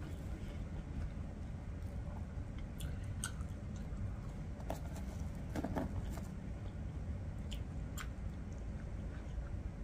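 Close-up mouth sounds of a person chewing and eating Burger King French fries, with scattered soft clicks and smacks over a low steady hum.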